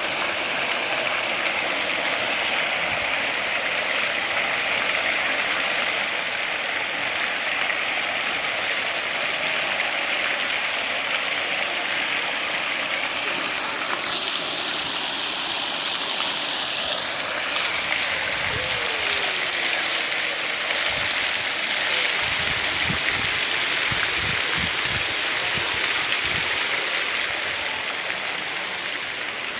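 Running water rushing steadily, like a stream or small cascade, its high hiss fading for a few seconds about halfway through.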